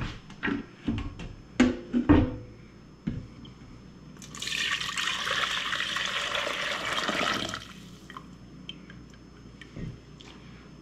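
Broth poured from a ceramic slow-cooker crock into a stainless steel saucepan: a steady splashing pour that starts about four seconds in and lasts about three seconds. A few knocks and clunks of the crock being lifted and handled come before it.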